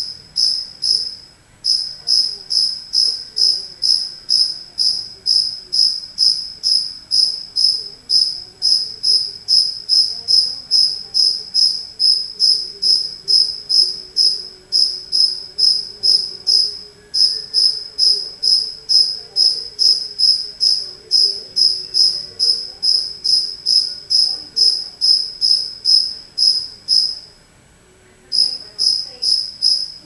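A cricket chirping steadily in a high, even rhythm of about three chirps a second, with a short break about a second and a half in, another around the middle, and a slightly longer one near the end.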